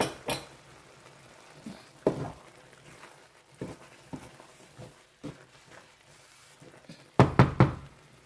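A utensil knocking against a pan of thick egusi and spinach stew as it is stirred: scattered soft knocks, then a quick run of three or four louder ones about seven seconds in.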